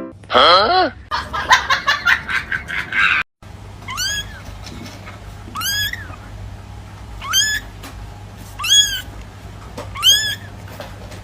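A cat meowing five times, each short meow rising then falling in pitch, about a second and a half apart, over a low steady hum. Before them, in the first three seconds, comes a loud sliding sound and a jumble of other noises, which then cut off suddenly.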